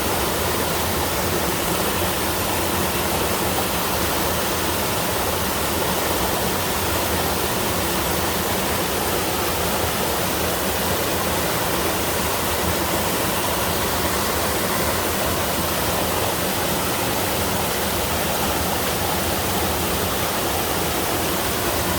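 Water falling over a small three-tier mountain waterfall, a steady, even rush that never changes.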